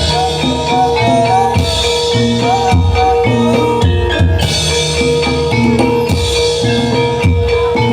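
Live Reog accompaniment music: drums beating a steady repeating rhythm under ringing tuned metal percussion, with one held tone and a wavering melody line above.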